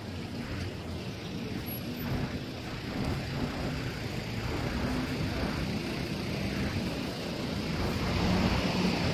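City street traffic on a wet road: a steady hiss of tyres on wet pavement with passing car engines, louder near the end.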